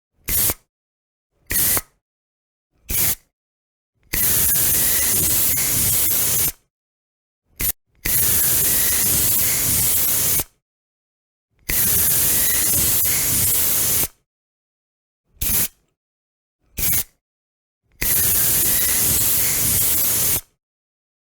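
Aerosol spray can hissing in a series of short puffs and longer sprays of about two and a half seconds, with silence between. The short puffs come in a run of three at the start and two more near the end.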